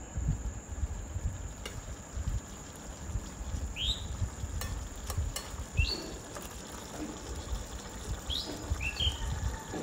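Metal spatula stirring a thick curry in a steel wok, with a few light clicks and scrapes over a low rumble. A bird chirps in short calls several times from about four seconds in.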